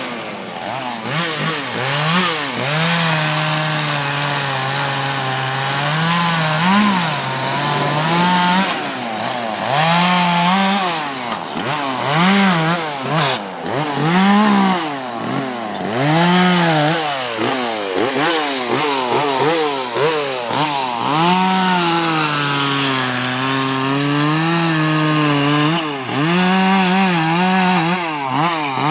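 Chainsaw carving into a block of wood, its engine revving up and dropping back over and over as the chain bites and eases off.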